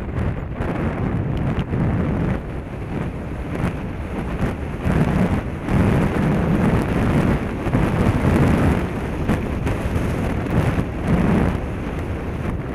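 Wind buffeting the microphone of a fast-moving action camera on a gravel road, a heavy rumble that swells and eases, with many small knocks and crackles from the rough ride.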